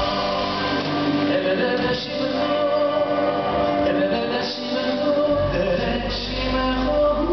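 Two male singers singing a duet into microphones over a live band. Near the end one voice slides up and holds a long note.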